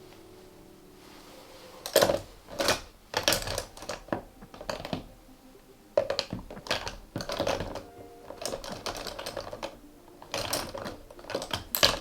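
Close-miked makeup handling: a fast, irregular run of sharp taps and short brushy scrapes, typical of a brush working a blush compact and tapping against it. It starts about two seconds in, over faint background music.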